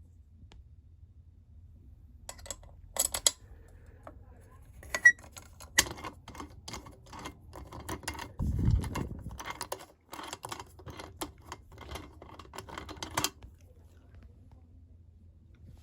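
Handling noise as small prizes and their packaging are moved about and set in place: a run of irregular clicks and rattles, with a dull low thud near the middle.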